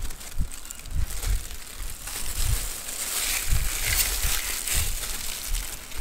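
A knife scoring raw chicken leg pieces, held in hands in thin plastic gloves: crinkling handling noise with soft low thumps, the crinkling heaviest in the middle.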